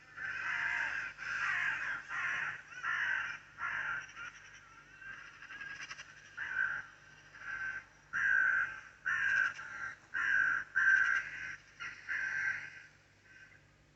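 A bird giving a run of harsh, cawing calls, about two a second, then a short lull before a second run of louder calls.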